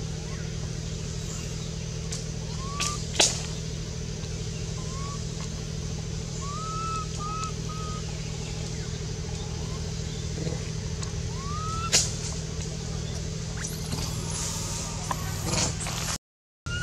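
Steady low motor hum throughout, with short high chirping calls every few seconds and two sharp clicks, about 3 and 12 seconds in. Rustling and scuffling near the end.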